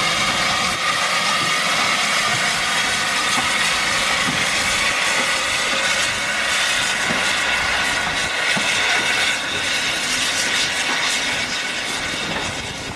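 Aspinall 0-6-0 tender steam locomotive passing at close range with a steady, loud hiss of steam. The sound eases off near the end as the locomotive's coach rolls by.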